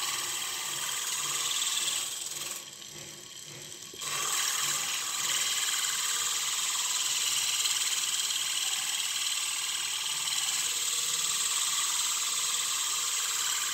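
A wood block being sanded on the spinning sandpaper disc of a homemade rotary sander driven by a 24 V DC motor taken from a reverse-osmosis water pump: a steady scratchy sanding noise. It drops off for about a second and a half about two and a half seconds in, then resumes.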